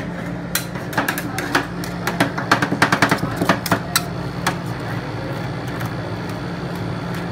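Metal spatulas chopping and tapping on the steel cold plate of a rolled-ice-cream counter as matcha ice cream is mashed and gathered. A quick, irregular run of sharp clacks fills the first half, then the clacks stop, leaving a steady low hum.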